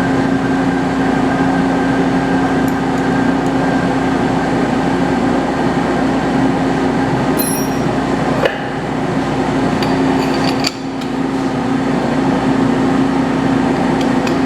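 Metal lathe running steadily under power with a strong even hum, turning the sawmill mandrel's collar, with a few sharp metallic clinks in the second half.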